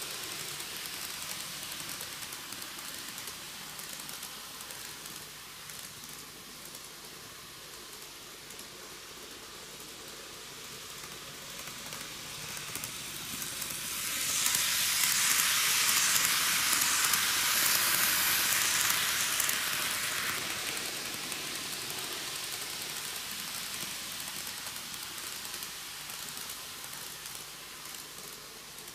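N-gauge model diesel railcar train, a Microace Meitetsu KiHa 8000 six-car set, running on TOMIX track with a steady hiss of wheels on rail and motor. It grows louder about halfway through for several seconds, then fades again.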